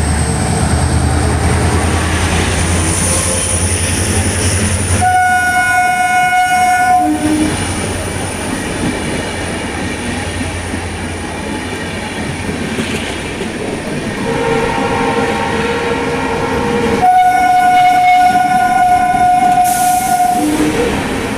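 WDG4D diesel locomotive sounding its twin-tone horn over the steady rumble and rattle of the running train. A high blast of about two seconds comes about five seconds in. Later a lower tone of about three seconds runs straight into a longer high blast near the end.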